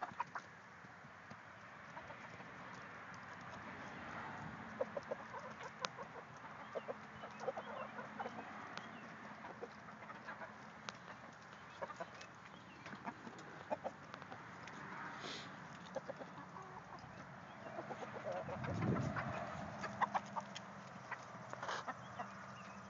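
A small flock of hens clucking, with scattered short ticks among the calls and one louder stretch of calling late on.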